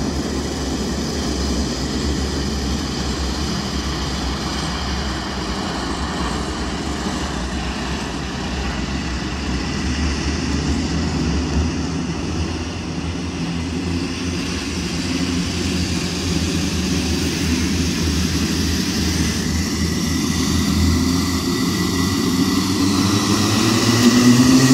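Go-kart engine running at a steady, low pace; over the last couple of seconds its note climbs as the kart speeds up.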